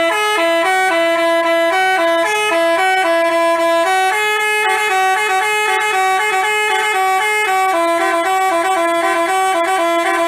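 Indonesian bus 'telolet basuri' musical horn playing a quick tune of stepped notes in two voices, changing pitch several times a second without a break.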